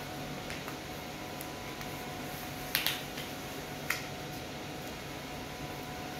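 Paper backing sheet being peeled back and handled on an adhesive mounting board, with two sharp crackles about three and four seconds in, over a steady background hum.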